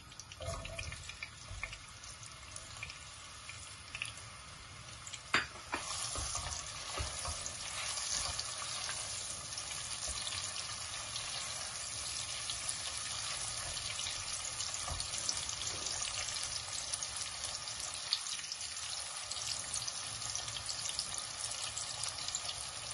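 Sliced red onions frying in a cup of hot oil in a pot, stirred with a spatula as they are browned. There is a sharp knock about five seconds in, then the sizzle grows into a steady hiss.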